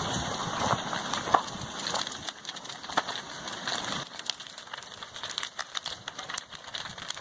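Lava flow engulfing a house, with irregular crackling and popping and scattered sharp cracks over a hiss.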